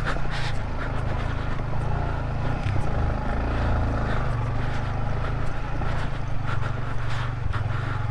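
Yamaha Vixion motorcycle engine running at low speed over a rocky track, under a steady low rumble. Scattered knocks and rattles from the bike jolting over stones come more often after the middle.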